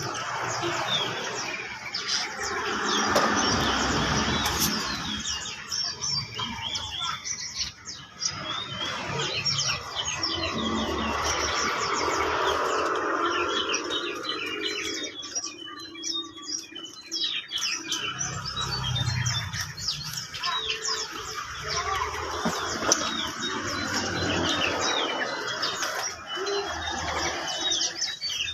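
A crowd of small caged songbirds chirping and twittering all at once, many short quick notes overlapping, with wings fluttering in the cages.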